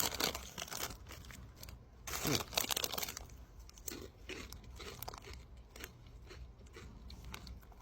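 A person chewing chili cheese Fritos corn chips: irregular crunches, louder in the first three seconds and fainter after.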